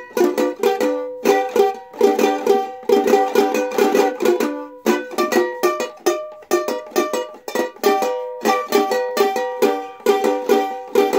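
Ukulele strummed in a steady rhythm of chords, an instrumental passage with no singing.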